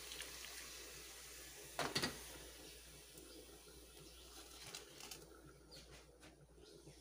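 Water poured from an aluminium kettle into a metal bowl of raw pork, the pour trailing off. About two seconds in there is a sharp double clunk as the kettle is set down on the iron top of a wood-fired stove.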